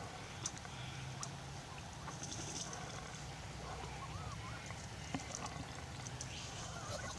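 Wild birds calling: short curling whistled notes and sharp high chips scattered throughout, over a steady low hum.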